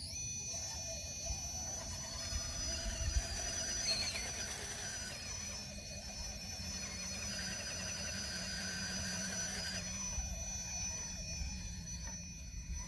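Radio-controlled rock crawler's electric motor and drivetrain whining as it crawls up a steep rock face, the high whine rising and falling in pitch with the throttle.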